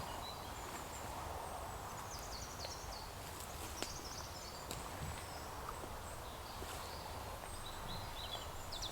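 Quiet woodland ambience with small birds calling faintly: a few short, high chirping phrases, plus a few faint clicks.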